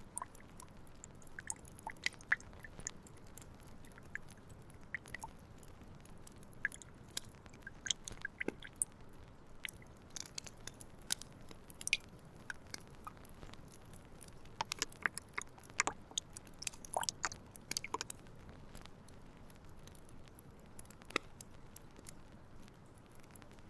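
Irregular light clicks and crackles of close-up hand work, clustered more densely in places, over a faint steady hiss.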